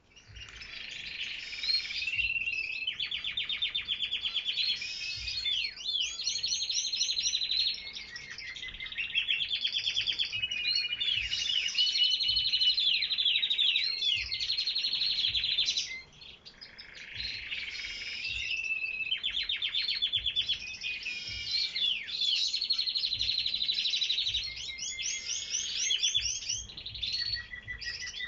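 Domestic canaries singing: long, rapid high-pitched trills and rolling warbled phrases, almost without pause, with one short break about halfway through.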